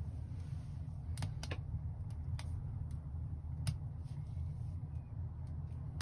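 Wood fire burning in a wood stove: a handful of sharp, irregular crackles over a steady low rumble.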